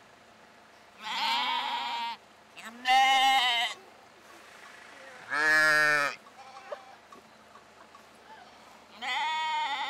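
Sheep bleating: four long, wavering bleats about a second each, spaced a couple of seconds apart. Three are higher-pitched calls from the lambs and one, just past the middle, is deeper, from the ewe; the last is still going near the end.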